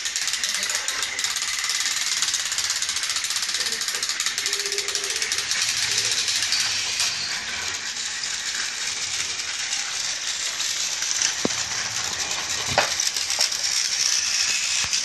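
Battery-powered toy train running along its track: a steady, fast rattle of its small motor and wheels, with one sharp click about 13 seconds in.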